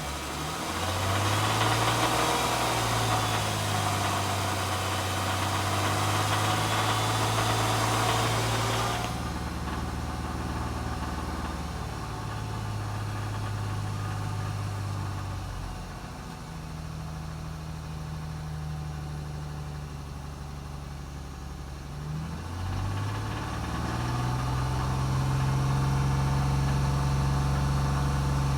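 2011 Hyundai Genesis 3.8-litre V6 engine idling, with a knock/rattle whose cause the owner cannot identify. A steady hiss over the engine note cuts off suddenly about a third of the way through, and later the engine note dips briefly and settles a little higher.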